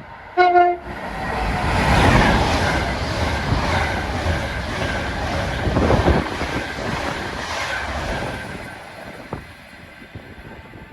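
Class 390 Pendolino electric train passing through the station, a rush of wheel and air noise that builds about a second in and dies away near the end. A short pitched tone sounds at the very start.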